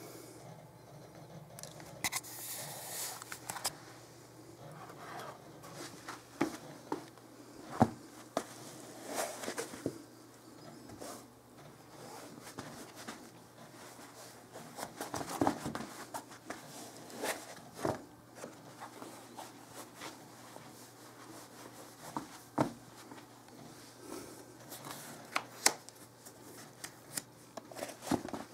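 Handling noise from canvas plimsolls being moved about and put on: irregular rustles, scrapes and light knocks, some sharper clicks scattered through.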